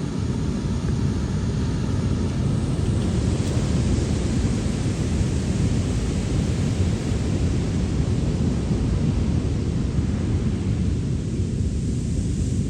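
Heavy North Shore surf, a steady deep roar of large waves breaking and whitewash rushing in, mixed with wind rumbling on the microphone.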